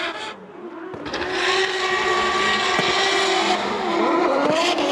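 Two drift cars, a Nissan Silvia and a BMW M3, drifting in tandem. Their engines rev hard, the pitch wavering up and down, over the hiss of tyres sliding and smoking. The sound swells to full loudness about a second in.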